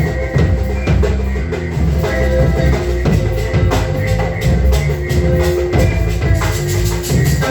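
Music with a drum kit keeping a steady beat over a bass line and held melodic notes.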